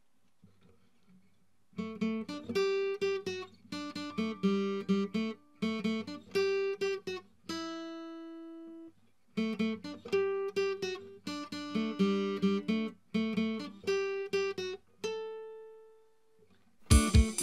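Acoustic guitar strumming chords after about two seconds of near silence, pausing twice to let a chord ring out, once near the middle and once near the end. Louder, harder playing kicks in right at the very end.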